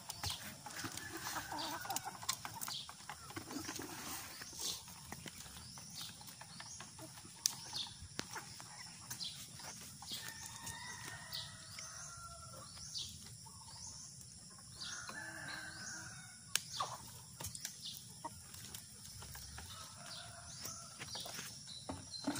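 Free-range native chickens clucking and calling, with short high chirps throughout. A rooster crows twice, about ten and fifteen seconds in.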